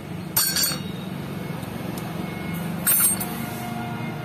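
Motorcycle clutch plates clinking against each other twice as they are handled, two short bright metallic clinks over a steady low hum.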